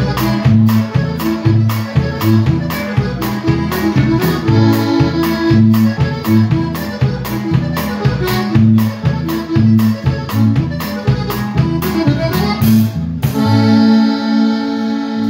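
Live norteño band playing a polka: accordion over a twelve-string bajo sexto, bass alternating between two notes, and a quick steady drum beat. About thirteen seconds in, the drums stop and the band holds a final chord that rings on.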